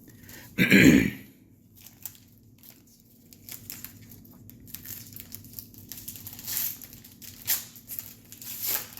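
Topps baseball card pack wrappers being torn open and crinkled, with the cards being handled, in scattered short rustles. There is a brief louder noise about a second in.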